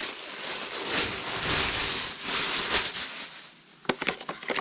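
Packaging rustling and crinkling as a cardboard box is opened and unpacked. A few sharp clicks or knocks follow near the end.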